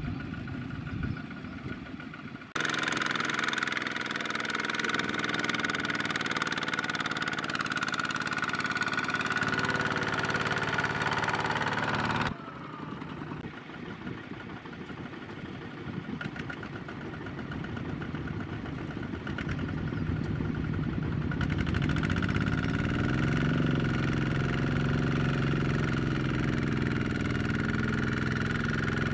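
Kubota ZT140 walk-behind tractor's single-cylinder diesel engine running steadily, with abrupt jumps in level where clips change. About three-quarters through, the engine speeds up and gets louder as the tractor labours in deep mud.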